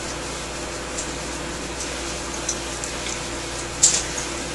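Steady background hiss with a low hum, the room tone of a recording setup, broken by a few faint clicks, the clearest a little before the end.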